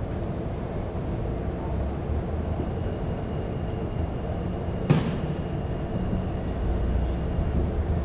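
Steady low rumble of outdoor background noise, with one sharp knock just before the five-second mark and a faint high whine through the middle.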